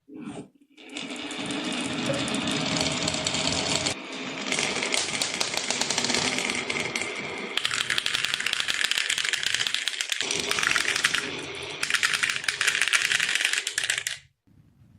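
Many marbles rolling and clattering down a wooden marble run track: a dense, rapid stream of clicks and clacks that shifts in tone several times and stops abruptly near the end.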